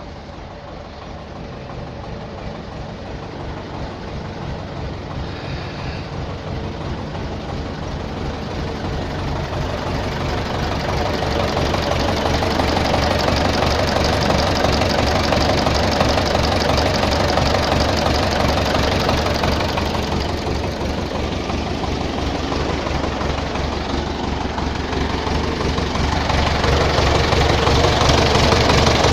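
Tractor diesel engine running at idle, getting gradually louder, with a knock that the owner puts down to a worn fourth piston or a worn connecting-rod bushing.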